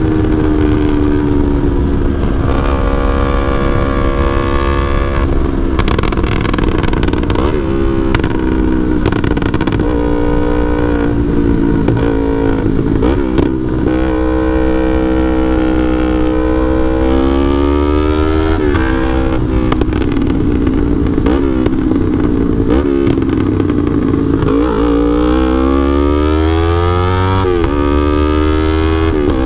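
Yamaha R3 321 cc parallel-twin with an aftermarket FullPro exhaust and remap, ridden and accelerated: the engine note rises in pitch, then drops back at each gear change, several times over, between steadier stretches.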